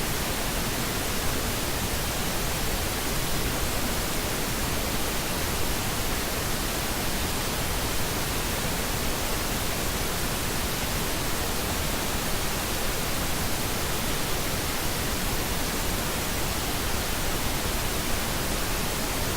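Steady pink noise: an even, unbroken hiss across the whole range.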